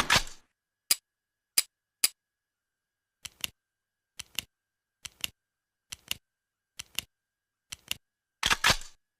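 Mossberg 500 pump-action shotgun handled: the tail of a shot dies away in the first half second, then three single sharp metal clicks, six evenly spaced double clicks about a second apart, and a louder, quick run of clacks from the action near the end.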